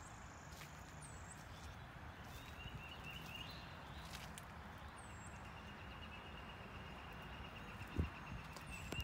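Outdoor ambience: a low rumble throughout, with a long, steady high trill that begins a couple of seconds in and faint short high chirps every few seconds, like distant birds or insects. A single thump near the end.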